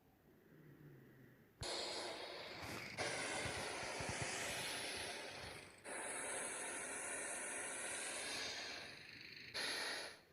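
A vehicle sound effect: a loud hiss of escaping air or steam that starts suddenly about one and a half seconds in, runs in several abruptly joined sections, and cuts off sharply near the end.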